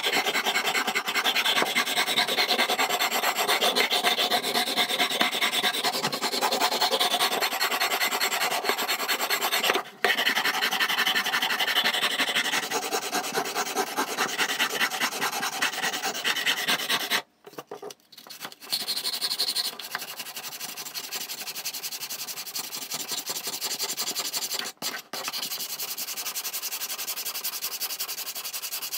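Hand sanding of the wooden filler blocks and frames of a model ship hull: sandpaper rasping in quick back-and-forth strokes, with a few short pauses, the strokes softer in the second half.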